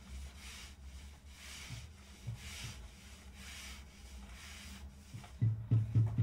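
Hands rubbing and smoothing wet clay on a turning potter's wheel: soft repeated swishes. About five and a half seconds in, a louder low thudding starts, about four to five beats a second.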